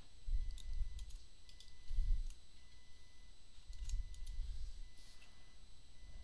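Computer mouse clicks and keyboard keystrokes, a few scattered clicks with some low dull bumps among them.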